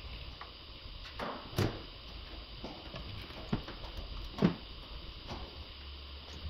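A few short clicks and knocks of engine-bay parts being handled by hand, loudest about a second and a half in and again near four and a half seconds.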